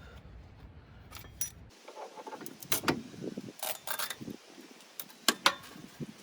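Metal tools and parts clinking and knocking in short, sharp, irregular strikes, loudest around three seconds in and twice just after five seconds. A low hum under the first two seconds cuts off suddenly.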